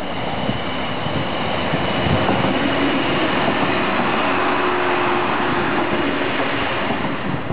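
DB Class 628 diesel multiple unit passing close by: steady diesel engine drone and the rumble of wheels on the rails, with a faint high whine on top, growing a little louder about two seconds in as the cars go by.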